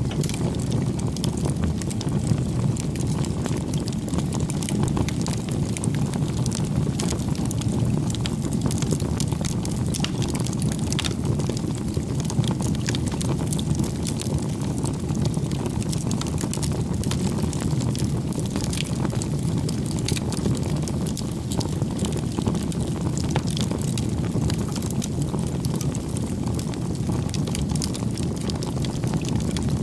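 Wood fire burning: a steady low rumble with frequent small crackles and pops.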